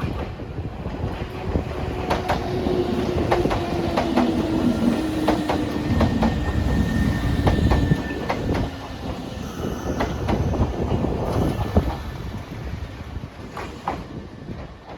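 Nankai electric train passing at close range, its wheels clicking over rail joints again and again, with a steady whine that slowly falls in pitch. It grows loudest about halfway through, then fades as the train moves away.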